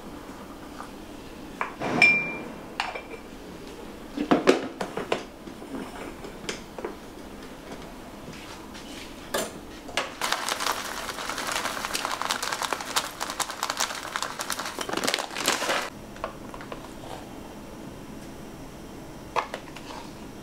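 Kitchenware being handled on a countertop: a metal stovetop moka pot and spoons clink and knock, one clink about two seconds in ringing briefly. In the middle comes a dense, continuous rattle lasting about six seconds.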